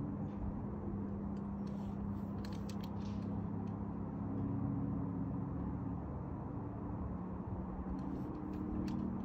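Steady low rumble of distant road traffic, with faint engine hum that rises and fades over a few seconds. A few light clicks come about two seconds in and again near the end.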